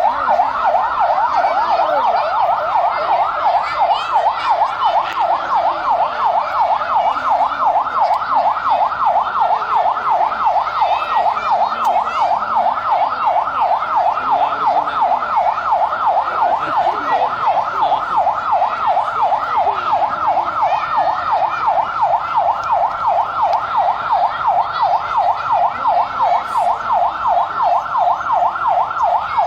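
Electronic siren sounding in a fast yelp, its pitch sweeping up and down about three times a second without a break.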